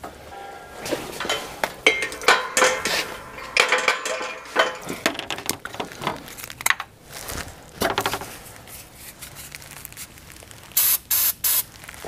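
Aerosol starting fluid sprayed into a diesel engine under the raised hood, as a cold-start aid in place of glow plugs. It ends in three short, loud hissing bursts close together, after some handling clatter of the can.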